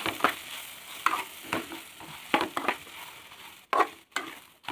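Metal spoon stirring and scraping okra and spice masala around a metal pot, with irregular scrapes and knocks against the pot over a steady frying sizzle.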